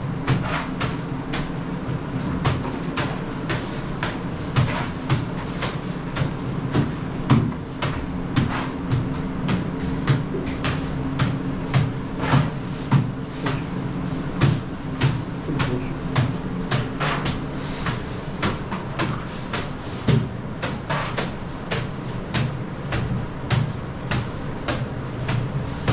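Irregular knocks and clatter, about two or three a second, over a steady low hum. A thin steady tone in the hum stops about two-thirds of the way through.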